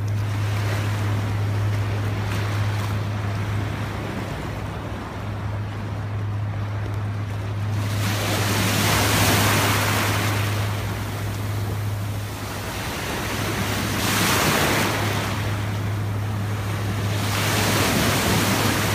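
Small ocean waves washing in over the shallows, surging and fading every few seconds and loudest about nine seconds in, with wind on the microphone and a steady low hum underneath.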